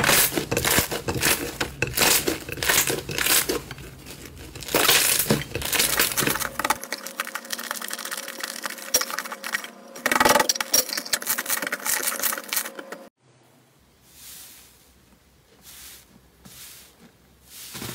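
Red slime squeezed and kneaded by hand, giving a fast, uneven run of sticky clicks and crackles. About 13 s in it gives way to a much fainter soft sound of a hand pressing into a puffy white slime.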